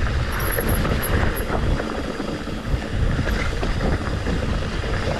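Wind buffeting the microphone over the rumble and scattered knocks of a mountain bike riding rough singletrack.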